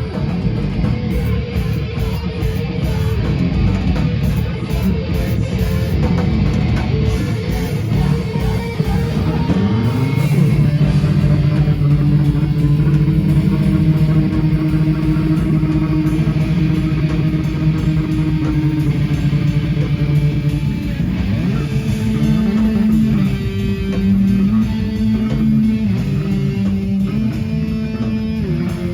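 Live rock band playing loud, with electric guitar and bass: a fast, choppy riff for the first ten seconds or so, then long held low chords, then moving riffs again near the end.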